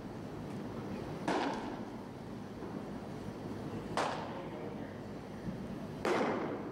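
A baseball pitched at about 78 mph smacks into a catcher's mitt just after six seconds in, a sharp pop that echoes around the hall. Two similar sharp pops come earlier, a little after one second and at four seconds.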